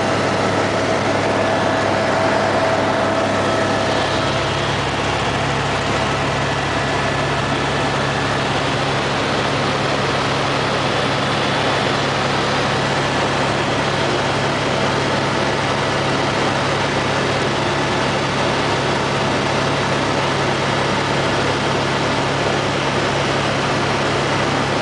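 Helicopter cabin noise in flight: a steady, unbroken engine and rotor drone over a rush of air, with a faint steady high whine.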